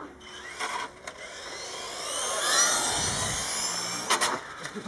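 Traxxas E-Revo electric RC monster truck driving fast past the camera: a whine from its electric motor and gearing that rises and falls as it goes by, loudest about halfway through. There are a few short knocks near the end.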